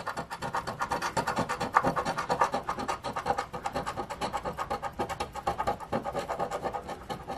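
A coin scraping the coating off a scratch-off lottery ticket in rapid, continuous back-and-forth strokes.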